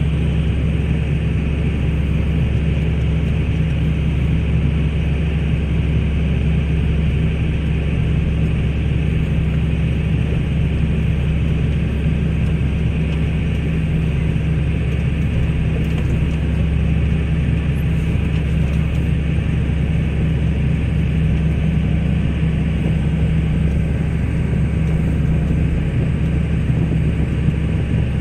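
Articulated four-wheel-drive tractor's diesel engine running steadily, heard from inside the cab as a constant low drone while it reverses with an air seeder in tow.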